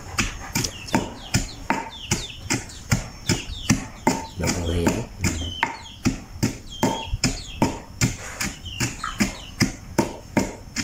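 Pestle pounding spice paste in a stone mortar: steady heavy thuds, about three a second.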